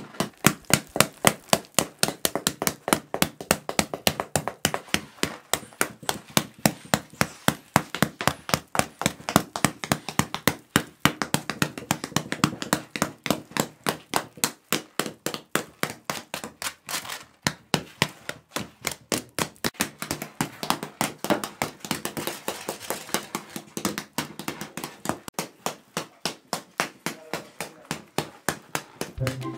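A wooden stick beating the thick crust off a round loaf of wood-fired country bread, in rapid, steady strikes of about four or five a second, the crust breaking away in flakes.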